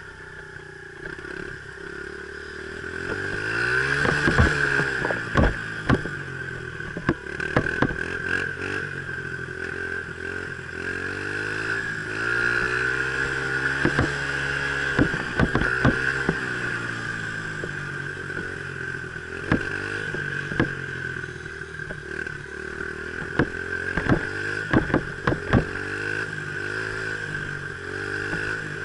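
Dirt bike engine running under way on a trail, its pitch rising and falling as the throttle opens and closes, with frequent sharp knocks and clatter.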